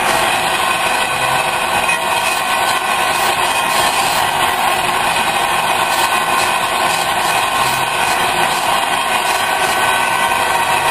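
Large metal lathe running steadily, turning a welded steel workpiece, with an even machine hum and hiss.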